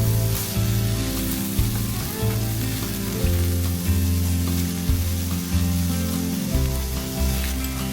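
Food sizzling as it fries in a pan, a steady hiss, heard under background music with held bass notes that change every second or so.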